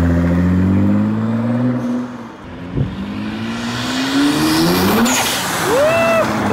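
2024 Nissan GT-R's twin-turbo V6 running, easing off about two seconds in, then climbing in pitch as the car accelerates. A burst of hiss follows around five seconds, and there is a short rise and fall in engine pitch near the end.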